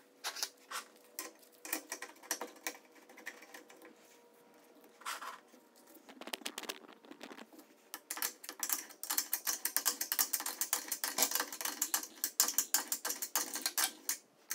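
Hand ratchet clicking as it runs in the bolt at the pedal crank arm hub: scattered short strokes at first, then fast continuous clicking over the second half.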